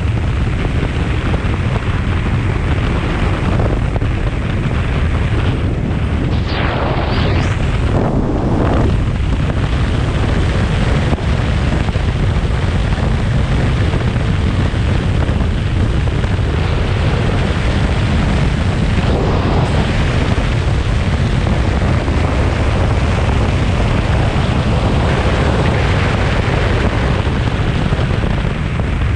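Steady, loud wind rumble buffeting the camera's microphone on a moving motorcycle, with engine and road noise mixed in and a few brief gusts.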